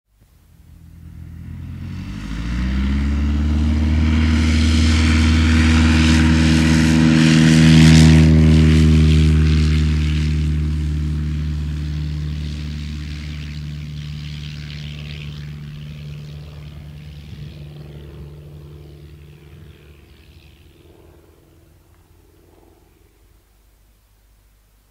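Piper single-piston-engine light aircraft taking off: the engine and propeller rise in pitch to full power over the first few seconds. The sound is loudest about eight seconds in, where the pitch drops slightly, then fades steadily into the distance.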